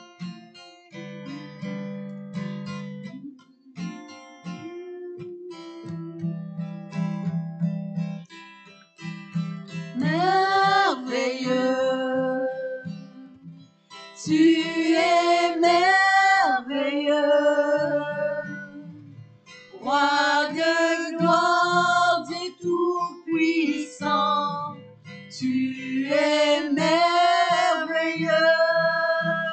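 Acoustic guitar strummed in a slow French worship song. Women's voices come in about ten seconds in and sing four long held phrases over the chords.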